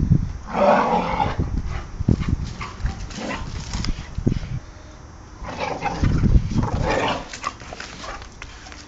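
Two seven-month-old American bulldogs play-fighting: dog vocal sounds with scuffling and knocks, loudest about half a second in and again from about five and a half seconds in.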